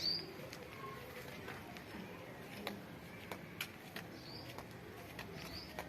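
A bird calling faintly with short high chirps, three times, over scattered faint clicks.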